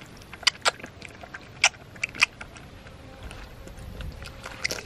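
A young pig slurping milk from a metal bowl, with a few sharp, irregularly spaced wet smacks of its mouth in the milk.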